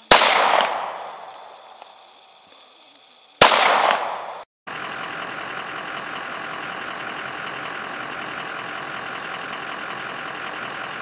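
Two pistol shots from a semi-automatic handgun, about three and a half seconds apart, each a sharp crack with a fading echo. After a brief silence near the middle, a steady hiss runs on.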